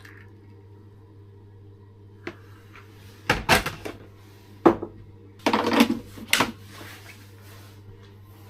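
A series of sharp knocks and clatters, a few single strokes and two short clattering bursts, over a steady low hum.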